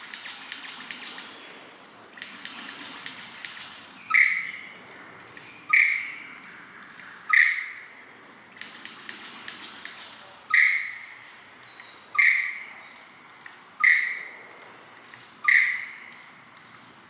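A male superb lyrebird's display song. It opens with a dense, fast clicking rattle, then seven loud, sharp notes, mostly about one and a half seconds apart, each cutting in suddenly and fading quickly, with a fainter rattle continuing between them.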